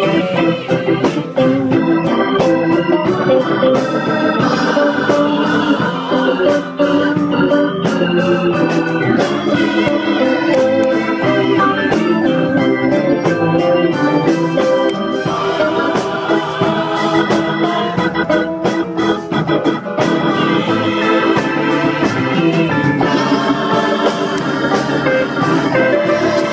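Hammond organ being played, with full sustained chords that shift from one to the next without a break.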